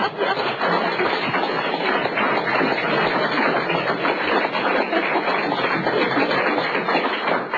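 Studio audience applauding, a dense steady clatter of many hands clapping that stops right at the end.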